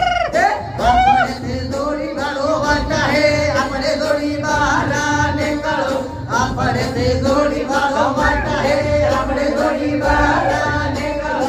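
Man singing into a microphone over backing music with a steady beat.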